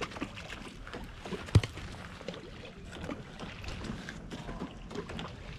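Riverbank ambience: water moving along the gravel shore and a little wind, with scattered small clicks and one sharp knock about a second and a half in.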